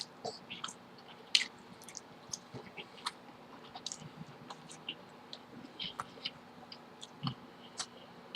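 Close-miked chewing: irregular wet mouth clicks and smacks, a few a second, with one sharper click about a second and a half in.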